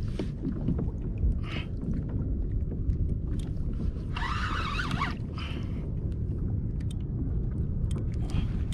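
Steady low rumble of wind and water around a fishing kayak at sea. A short, higher warbling sound comes through about four seconds in.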